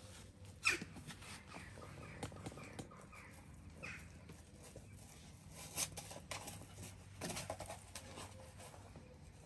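An adult Labrador and a Labrador puppy play-wrestling: soft scuffling and mouthing, with a few short squeaks, the sharpest about a second in.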